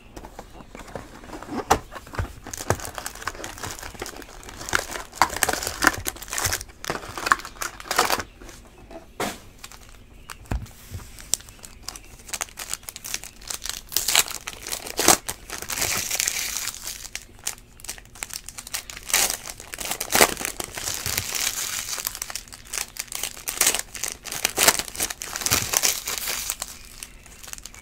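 Trading-card pack wrappers crinkling and tearing as packs of 2013 Panini Prizm Baseball are ripped open and the cards handled, in irregular crackling bursts.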